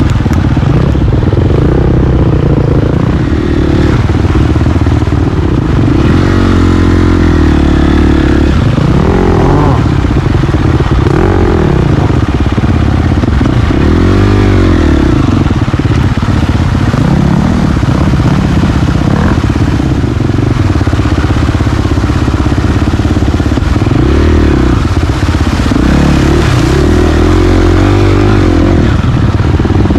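KTM 350 XC-F single-cylinder four-stroke dirt bike engine, on the bike the camera rides with, revving up and down as it is ridden slowly over rough single-track, its pitch rising and falling with each blip of the throttle.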